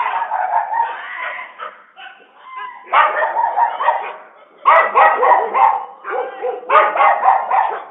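Stray dogs barking in quick runs of many barks, with short pauses between the runs.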